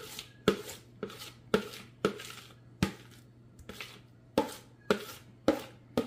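A spatula scraping the inside of a plastic mixing bowl in short, quick strokes, about two a second, clearing out a thick, cheesy potato mixture.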